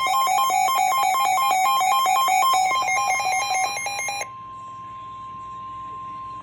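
Weather radio alert: an electronic alarm beeps rapidly back and forth between two pitches over the steady NOAA Weather Radio warning alarm tone. The beeping stops abruptly about four seconds in, and the plain single warning tone carries on alone until near the end.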